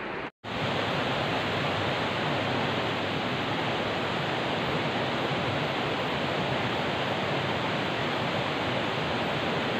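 Small forest stream running steadily over rocks, an even rushing with no change, starting after a brief silence about half a second in.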